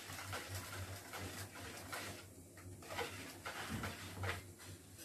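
Metal utensil stirring a liquid egg-and-milk custard mixture by hand in a plastic mixing bowl, with faint, irregular light clicks and scrapes against the bowl. A steady low hum runs underneath.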